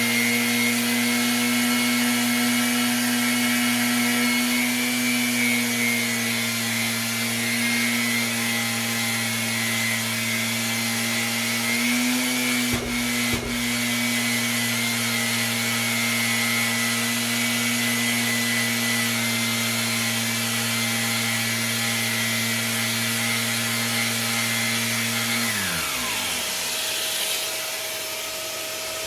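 Makita orbital sander running steadily, sanding an alloy wheel with 320-grit paper, with a dust extractor running alongside; a brief knock about halfway. Near the end the sander is switched off and its hum glides down as it spins down, leaving the extractor running.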